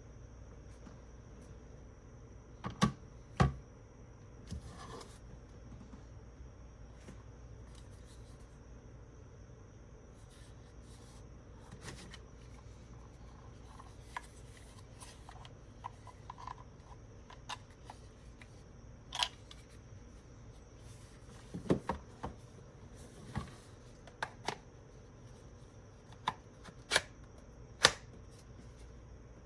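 Scattered handling noises: about a dozen short clicks and light knocks, some in quick pairs or clusters, over a faint steady hum.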